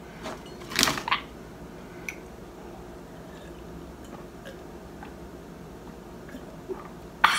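A person drinking water from a glass: a brief rustle and clink as the glass is picked up about a second in, then quiet sips and swallows, and a sudden louder burst of noise near the end.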